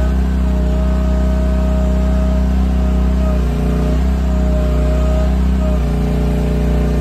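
Small gasoline engine of a cheap Chinese 1-ton mini excavator running steadily while digging, its pitch dipping briefly twice.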